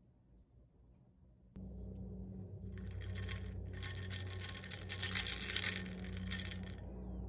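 Iced coffee just transferred into a stainless steel tumbler, the foam fizzing and the ice crackling, over a steady low hum. It begins suddenly about a second and a half in and is densest from about three seconds until near the end.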